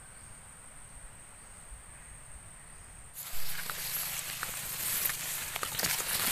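A steady high-pitched insect trill. About three seconds in, the sound changes suddenly to a louder hiss with scattered clicks and rustles.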